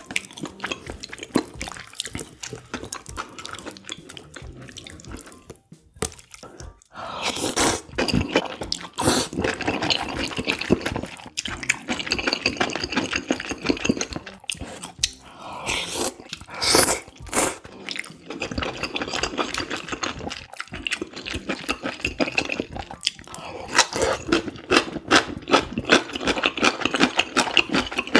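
Close-up eating sounds of spicy noodle soup: slurping noodles and wet chewing, with chopsticks clicking against the pot. Bursts of louder slurping come in a few bouts, and the chewing is fast and clicky near the end.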